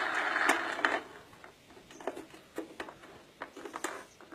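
Plastic See 'n Say toy being handled, its pointer turned by hand with a run of small, irregular plastic clicks. The toy's recorded playback trails off in the first second.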